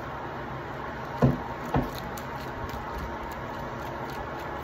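Two short knocks about half a second apart, over a steady background hiss.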